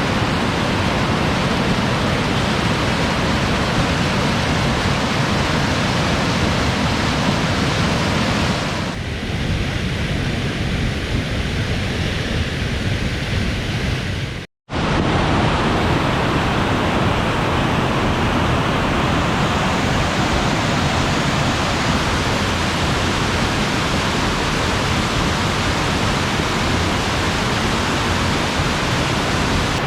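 Steady rushing of Battle Creek Falls in heavy snowmelt flow, a loud even roar of water. It drops out completely for a split second about halfway through, then carries on as before.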